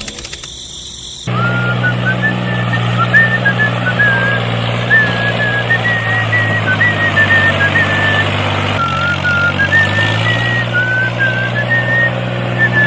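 Tractor engine running with a steady low drone that starts abruptly about a second in, with a brief dip near the end. A high, wavering whistle-like tone runs above it.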